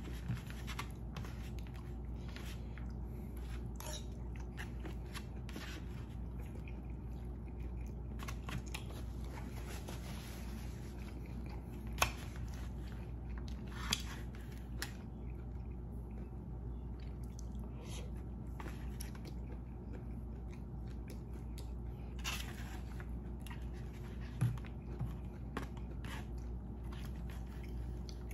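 A person chewing and eating, with scattered short clicks and scrapes of a metal spoon against a plate, over a steady low hum.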